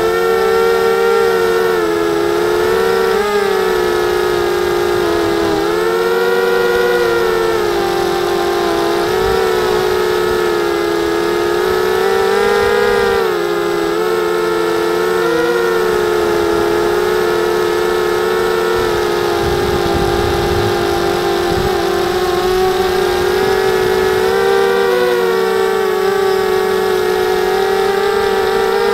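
Motors and propellers of a 250-size FPV racing quadcopter, heard from the onboard camera: a steady whine that rises and falls in pitch as the throttle changes, with a brief low rumble about two-thirds of the way through.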